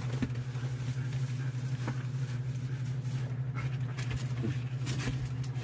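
Siberian huskies and a small dog crowding close for food, making short dog noises among small knocks and clicks, over a steady low hum.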